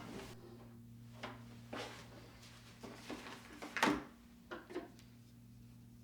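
Household objects being handled: a string of light knocks and rustles, with a louder clunk about four seconds in, over a faint steady low hum.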